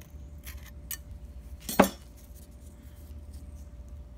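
Metal tools being handled while fitting valves: a few light clicks, then one sharp metallic clink with a brief ring about two seconds in, over a steady low hum.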